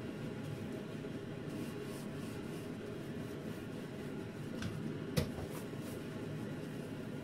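Sponge scrubbing the underside of a kitchen range hood, with a sharp tap a little over five seconds in, over a steady low hum.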